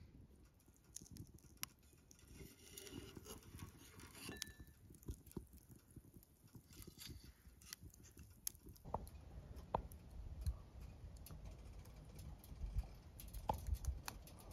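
Dry-branch wood fire burning in a homemade ammo-box stove, crackling with faint, irregular pops and snaps, a few sharper ones in the second half.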